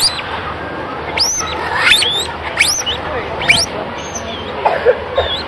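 Patagonian maras squeaking: a series of short, high-pitched calls, about one every second, over a steady outdoor background.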